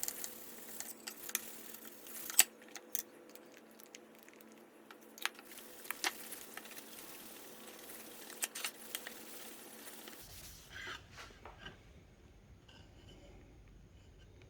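Scattered small clicks and light rubbing or scraping of objects being handled, over a faint steady hum; the hum stops suddenly about ten seconds in, leaving fainter handling noises.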